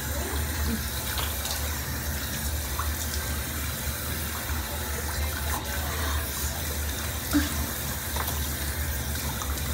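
Water running steadily from a bathroom tap, with a few faint small knocks of handling.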